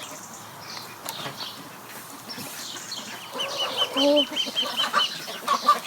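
Chickens clucking and calling, with a quick run of short, high calls, about six a second, starting about three seconds in.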